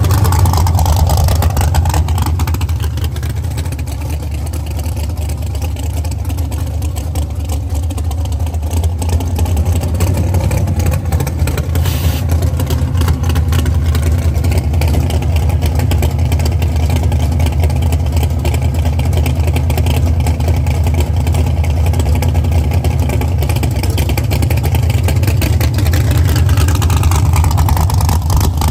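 Drag radial race car's engine idling loud and steady, a deep low rumble as the car sits and rolls slowly.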